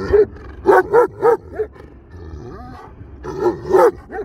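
Central Asian Shepherd (Turkmen alabai) barking repeatedly in short, loud barks, one run in the first second and a half and another near the end, with a quieter gap between.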